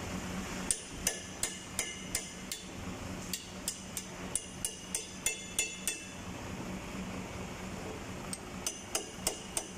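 A hammer striking the steel cable winch drum of a boom truck crane, stripped of its old cable. The blows are sharp and ringing, about three a second; they stop for about two seconds and start again near the end.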